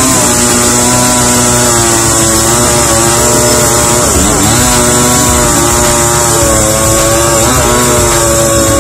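20-inch Stihl MS5200 chainsaw's two-stroke engine running loud and steady, its pitch dipping briefly and picking up again about halfway through and once more near the end.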